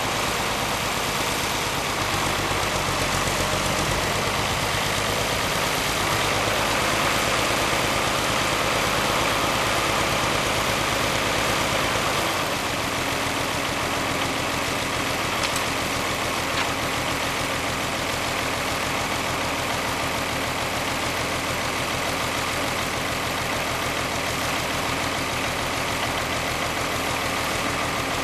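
1955 Allis-Chalmers WD-45 Diesel tractor's six-cylinder diesel engine running steadily. Its note changes about twelve seconds in as the tractor stops, and it then runs at a steady idle.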